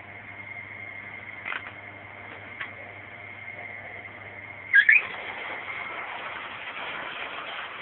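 Old metal lathe running with a steady high-pitched whine over a low hum, with two light clicks. About five seconds in comes a loud double clack with a brief squeal, the hum stops, and a rougher running noise carries on.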